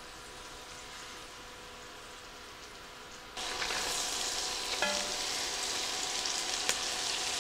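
Chopped onion hitting hot butter and oil in an enamelled cast-iron pot: after a quiet start, a sudden sizzle about three and a half seconds in that goes on frying steadily, with a light knock of the scraper against the pot.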